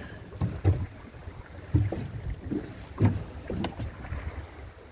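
Water slapping and splashing in irregular low splashes, several over a few seconds, with wind rumbling on the microphone.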